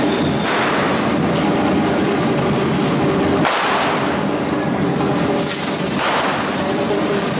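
Correfoc pyrotechnics: a dense, continuous crackle and banging of firecrackers, with hissing sprays of sparks surging about half a second in, again around three and a half seconds in, and near the end.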